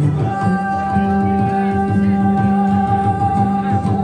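Live acoustic song: a woman singing one long held note into the microphone, with her acoustic guitar playing beneath.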